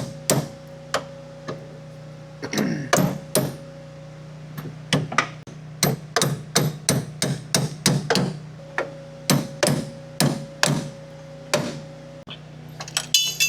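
Hammer striking a stuck bolt to drive it down at the lower control arm of a 1966 Mustang's front suspension: a few scattered blows, then a steady run of about two blows a second from about five seconds in, stopping near the end.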